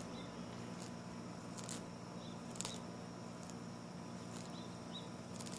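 African spurred (sulcata) tortoise grazing on clover: short crisp clicks and crunches about once a second as it bites off leaves, over a steady low hum.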